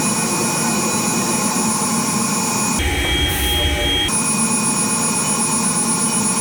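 5-axis CNC milling machine running an air pass with no cutting: a steady mechanical whir with several thin high whines. The tone shifts abruptly about three seconds in and changes back a little over a second later.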